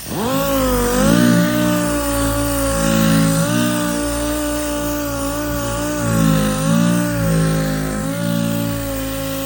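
Orbital sander spinning up to a steady whine and running on a truck door panel, scuffing the paint with 800-grit paper. The pitch rises sharply as it starts, then wavers a little as it is worked across the panel.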